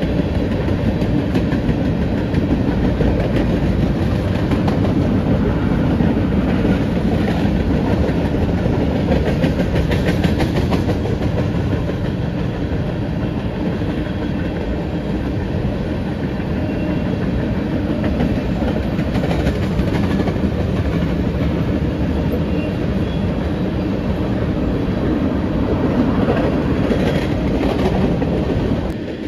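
Covered hopper cars of a long freight train rolling past, steel wheels clacking over the rail joints in a steady rumble.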